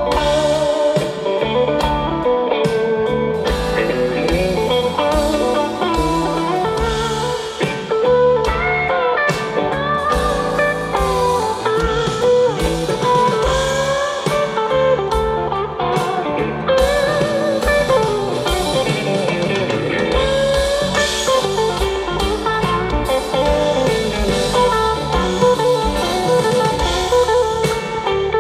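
A live band playing a song, with a guitar lead over a drum kit.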